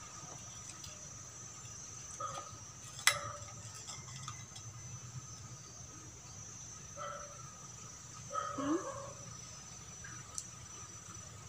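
Chickens clucking a few times in short calls, the last with a short rising note, and one sharp click about three seconds in, over a faint steady high tone.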